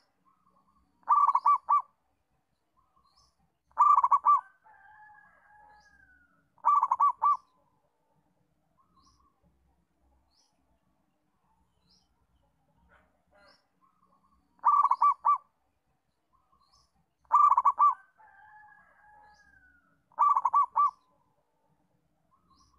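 Zebra dove (perkutut) singing: two bouts of its cooing song, each of three short phrases of rapid staccato coos about three seconds apart. A fainter drawn-out gliding note falls between the second and third phrases of each bout. Faint high chirps of small birds sound in the background.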